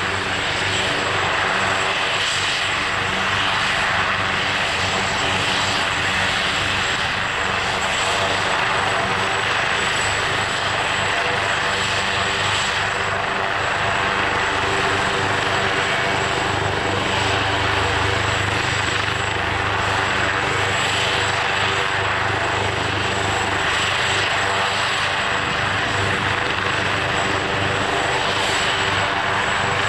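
AgustaWestland AW139 twin-turbine helicopter running on the ground with its rotors turning: a steady high turbine whine over the rotor and engine noise.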